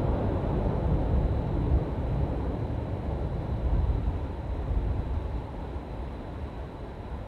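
Seoul Subway Line 1 train rumbling across the Hangang Railway Bridge, fading steadily as it moves away.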